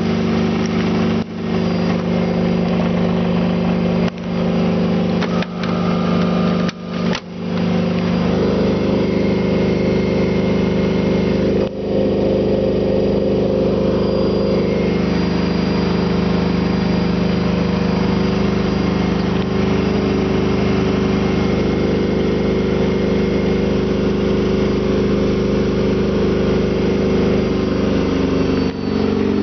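Miele washing machine in its spin cycle: the spinning drum and motor give a steady, loud hum of several tones, which shifts in pitch about eight seconds in and again near the end. A few brief dips in level break it in the first twelve seconds.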